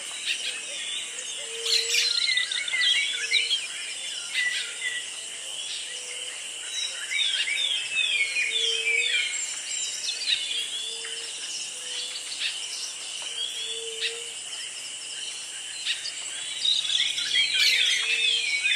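Outdoor evening chorus: many birds chirping over a steady high drone of insects, with a short low note repeating every one to two seconds.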